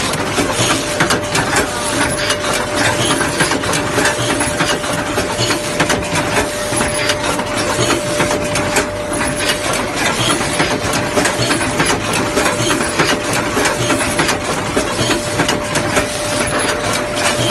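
Automatic sanitary napkin bagging machine running: a dense, steady clatter of fast clicks and knocks from its moving parts, with a steady tone held underneath.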